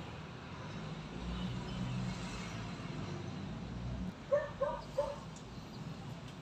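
A low steady rumble that stops about four seconds in, then three short, pitched animal calls in quick succession, about a third of a second apart.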